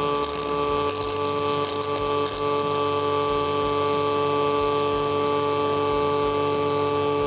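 Steady hum of several held tones over a constant hiss.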